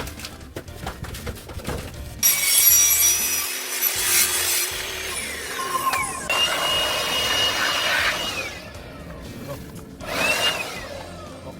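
A power tool running in two bursts: a long one of about six seconds starting about two seconds in, and a short one near the end, its motor whine sliding down in pitch as it slows.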